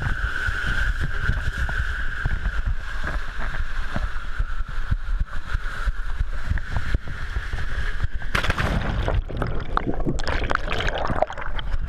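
Water and a rider rushing down an enclosed water-slide tube, heard from a camera carried by the rider: a steady rumble with a constant hiss-like whistle. About eight seconds in, a sudden splash as the rider lands in the pool, followed by gurgling, bubbling water.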